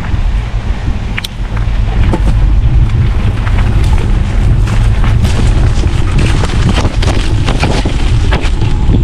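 Wind buffeting the microphone of a camera riding along on a bicycle: a loud, steady low rumble, with scattered clicks and rattles that come thicker in the second half.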